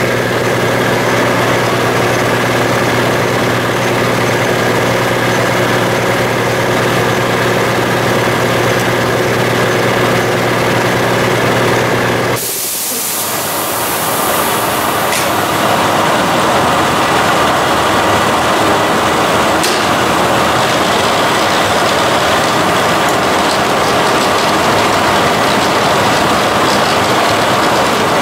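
Bardons & Oliver No. 7 turret lathe running under power: a steady hum with even tones. About twelve seconds in the sound dips briefly and changes to a broader, hissing whir that builds over a couple of seconds and then holds steady.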